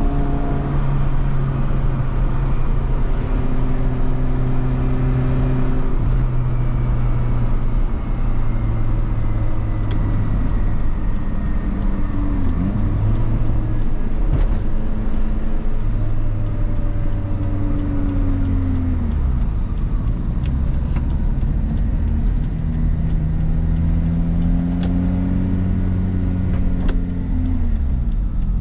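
Mitsubishi Pajero Mini's small four-cylinder engine running on the road, heard from inside the cabin over tyre and road noise. The engine note holds, steps down several times and falls away twice, then climbs again and drops off near the end.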